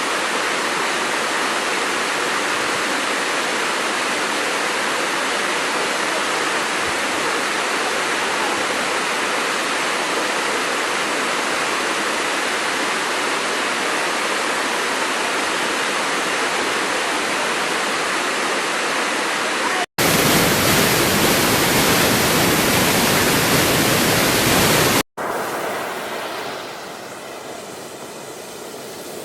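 Steady rush of water. About twenty seconds in, it cuts abruptly to a louder, hissier rush for about five seconds, then cuts again to a quieter rush that drops down, with a faint droning tone coming in near the end.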